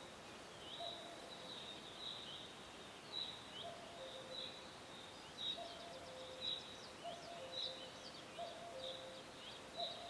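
Forest birdsong: short high chirps with a quick downward flick, repeating about once or twice a second, over a low two-note hooting call that repeats again and again, with a faint steady hiss of ambience beneath.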